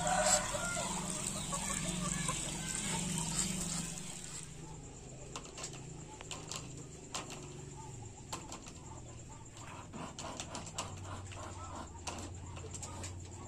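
Water trickling and splashing into a small pond. About four seconds in this gives way to a quieter farmyard with scattered sharp clicks and faint fowl sounds from a group of muscovy ducks.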